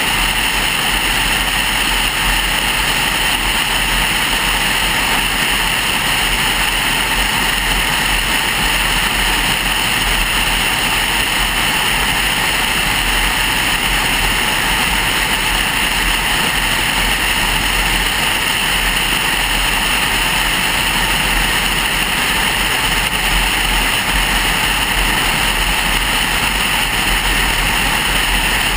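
Steady tyre, wind and engine noise of a car cruising at a constant speed, heard from inside the cabin.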